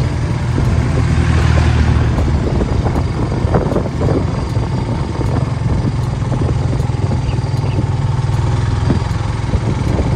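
Steady engine drone and road noise of a moving vehicle heard from inside its cabin, with another vehicle passing close by about a second or two in.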